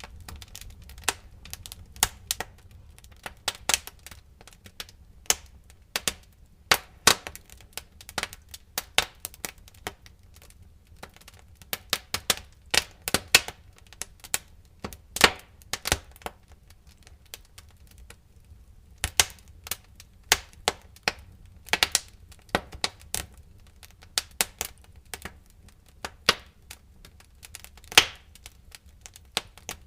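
Wood fire burning in a fireplace, crackling: sharp, irregular pops and snaps, some in quick clusters, over a low steady rumble of flame.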